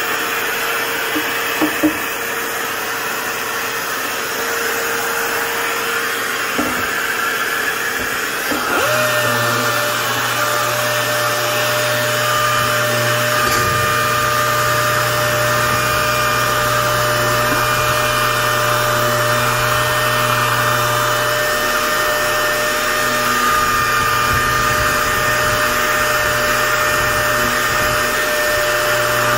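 Small random orbital sander running with its dust-extraction hose drawing air while sanding plastic spoiler parts: a steady motor whir with air rush. About nine seconds in, a steadier hum with fixed pitches joins and holds.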